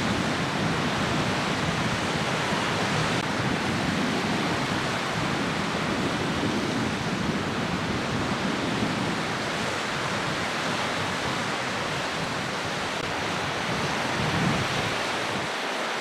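Steady rush of wind and small wind-driven waves breaking on a beach, with no distinct events.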